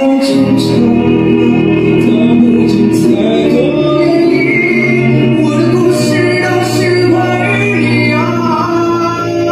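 A young man singing a Mandarin pop ballad into a handheld microphone, with long held notes, over a steady accompaniment.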